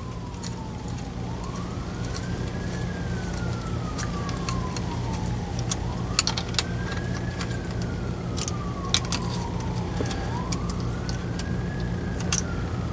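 An emergency vehicle's siren wailing, rising and falling slowly in pitch about every four and a half seconds, three times over. A steady low hum lies underneath, with a few light clicks.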